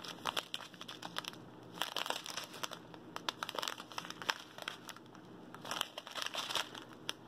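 Small clear plastic zip bags of diamond painting drills crinkling as they are handled and shuffled in the hands, in irregular crackly bursts.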